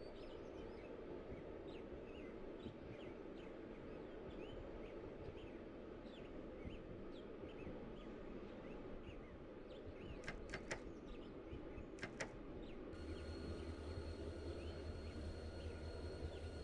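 Interior of an ES2G Lastochka electric train: a steady low rumble with many short high chirps, then a few sharp clicks about 10 and 12 seconds in. At about 13 seconds the electric traction drive switches on with a low hum and a steady whine, and the whine's pitch begins to rise near the end as the train starts to pull away.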